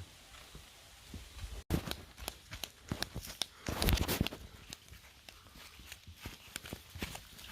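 Irregular steps knocking on hard ground, with a louder scuffling burst about four seconds in.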